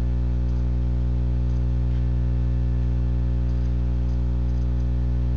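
Steady electrical hum with a buzzy stack of overtones, unchanging in pitch and level: mains hum picked up in the webcam recording.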